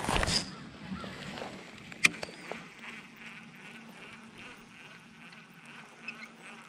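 An insect buzzing close by, a steady hum, with a rustle at the start and a sharp click about two seconds in.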